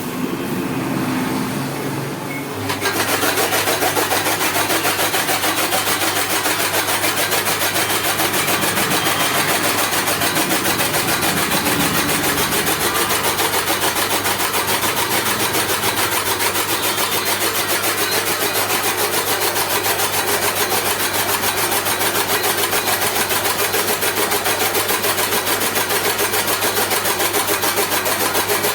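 Chaff cutter machine running steadily with a constant low hum and a fast, even chopping pulse. It comes in abruptly and much louder about three seconds in.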